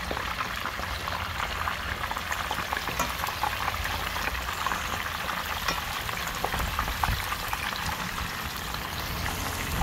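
Tilapia pieces shallow-frying in hot oil in a pan: steady sizzling with small crackling pops, the fish being fried crisp.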